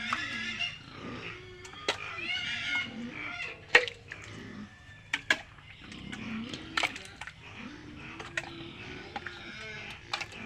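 Chickens clucking, with short pitched calls near the start and again a couple of seconds in. Sharp clicks and knocks are scattered throughout.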